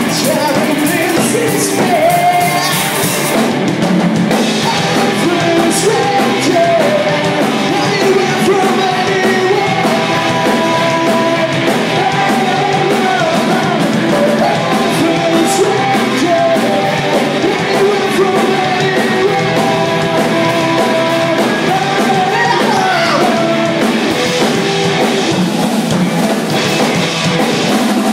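Live rock band playing loud: distorted electric guitars, a drum kit and a male voice singing into the microphone.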